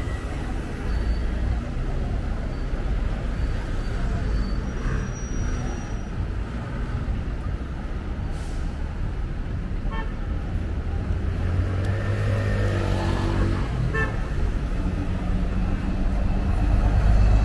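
City street traffic: motor vehicle engines running and passing with a steady low rumble, one growing louder near the end as it passes close.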